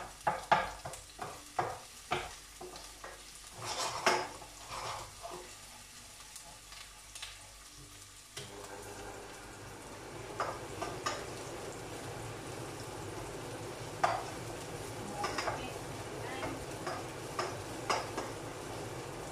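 Wooden spoon stirring onions in hot oil in a frying pan, scraping and knocking sharply against the pan, with the onions frying. About eight seconds in, a steady rushing noise comes in suddenly and carries on under the spoon's occasional taps.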